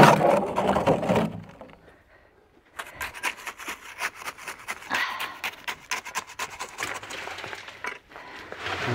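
Sand-and-gravel mix being scraped up and carried, with footsteps. A louder burst of scraping comes in the first second, then a short lull, then a run of irregular clicks and scrapes.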